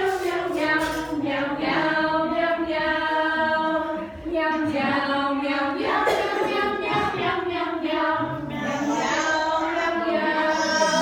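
A group of voices singing a song together, holding notes that shift in pitch from one to the next.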